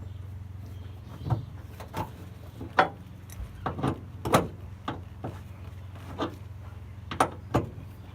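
Metal hand tools clinking and knocking against bolts and terminals as connections on a truck's battery and starter solenoid are loosened. The sharp, irregular clicks, about a dozen, run over a steady low hum.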